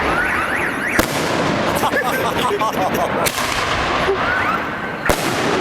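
A large Chinese firework cake firing, with several sharp bangs a second or two apart over a continuous dense crackle. Car alarms whoop and warble underneath.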